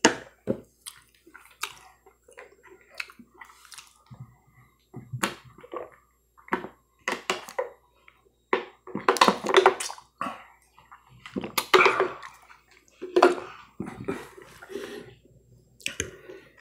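Close-miked chewing and mouth sounds of a person eating, then drinking from a plastic water bottle with louder swallowing gulps from about halfway through.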